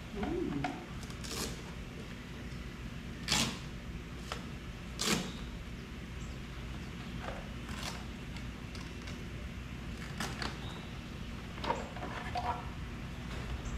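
Plastic Milwaukee tool case and the parts inside it being handled as it is unpacked: scattered sharp clicks and knocks, about half a dozen, over a low steady hum.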